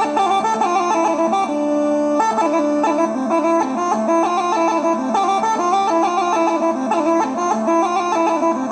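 Instrumental music: a melody moving in quick steps over a steady held drone.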